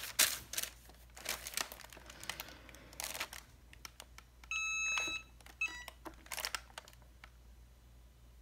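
Parchment sheet rustling and crinkling as it is slid into place, then a Cricut EasyPress heat press beeps: one longer beep about four and a half seconds in and a short run of quicker beeps a second later, as its press timer is started.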